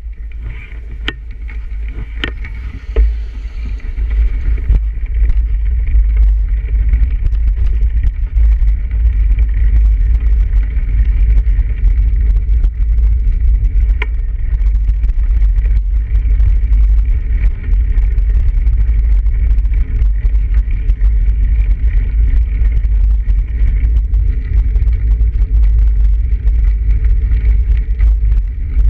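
Riding noise from a bicycle rolling over snow: a steady, loud low rumble of wind and tyre noise at the handlebar-mounted camera, louder after about four seconds. A few sharp clicks and rattles come in the first few seconds and once about halfway.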